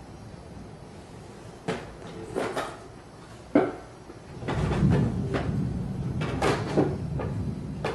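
A scattered series of knocks and creaks, the sharpest a single knock about three and a half seconds in. From about halfway on a low rumble runs under further knocks.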